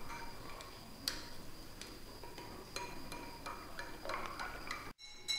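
A stirrer clinking and tapping lightly against a small glass beaker in irregular faint clicks, one sharper about a second in, as chloride salt is stirred into a silver-plating solution to dissolve it.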